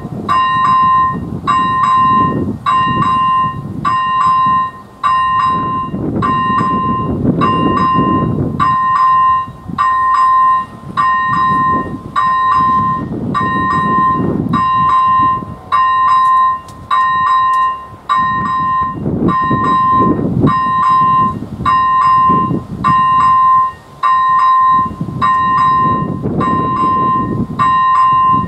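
Electronic level-crossing bell (AŽD ZV-01) on the AŽD 97 warning lights, ringing in even repeated strokes about once a second to warn of an approaching train. Under it, a low rumble swells and fades every few seconds.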